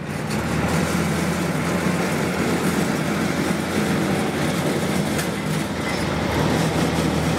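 Kubota DC70 rice combine harvester running under load while cutting, a steady engine drone mixed with the clatter of its cutting and threshing machinery. It is running really hard.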